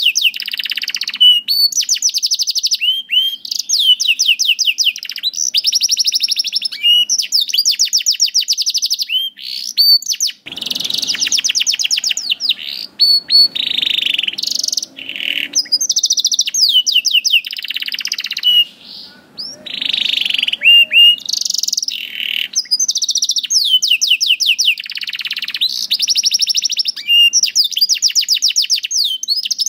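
Domestic canary singing a long, loud song of rapid trills and rolls. The high, fast-repeated notes come in phrases of a second or two, with brief breaks between them.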